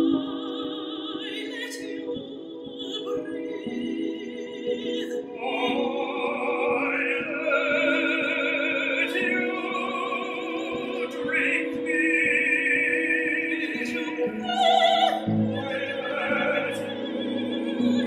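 Operatic singing in long, held notes with vibrato, the words 'I let you', over a small chamber ensemble of violin, cello, flute and clarinet. Lower notes come in about two-thirds of the way through.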